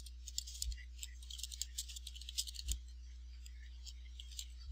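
Typing on a computer keyboard: quick, irregular light key clicks, densest in the first three seconds and sparser after, over a faint steady low hum.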